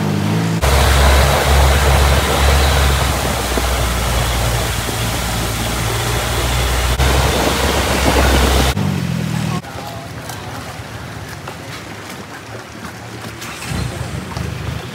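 Longtail boat's engine running at speed under a loud rush of water spray, then, about nine seconds in, the sound cuts to a much quieter, steady low engine hum.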